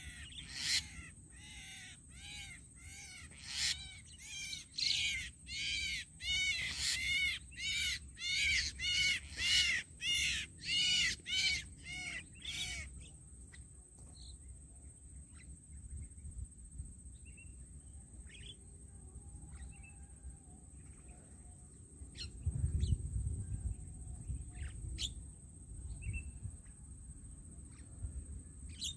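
Harsh, repeated calls of a starling-type bird (jalak), about two a second, which stop abruptly about 13 seconds in. Sparse short chirps follow, over a steady thin high-pitched tone.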